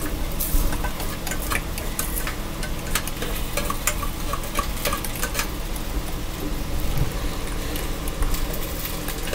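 A utensil stirring beaten eggs in a glass bowl, clicking quickly and irregularly against the glass, over the steady sizzle of food frying in pans on the stove.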